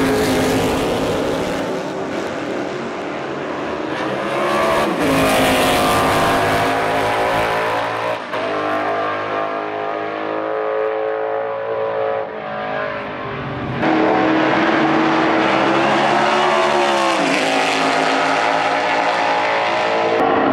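Lola T332 Formula 5000 car's V8 racing engine at full throttle, revving up and dropping in pitch at each upshift, several times over. It gets louder about two-thirds of the way through as the car comes closer.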